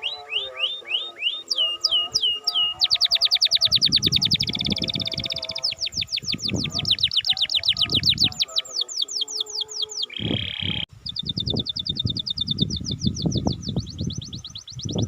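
Domestic canary singing: long rolling trills of fast, rapidly repeated downward-sweeping notes, changing speed from phrase to phrase, with a short steady whistled note about ten seconds in.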